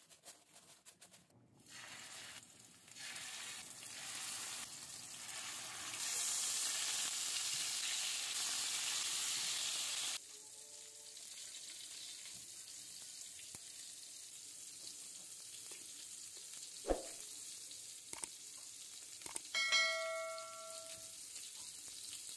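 Minced-meat and zucchini cutlets sizzling as they fry, the sizzle getting louder and then cutting off suddenly about ten seconds in, leaving a quieter hiss. Near the end, a sharp click and then a short ringing note as metal cutlery strikes the plate.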